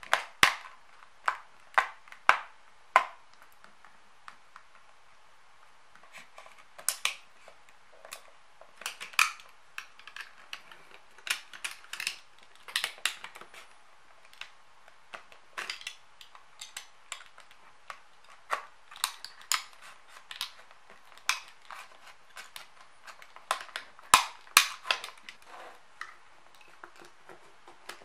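Plastic case of an HP laptop battery pack clicking and cracking as its seams are pried apart with a screwdriver tip and a utility-knife blade. The sharp snaps come irregularly, in clusters with short pauses between.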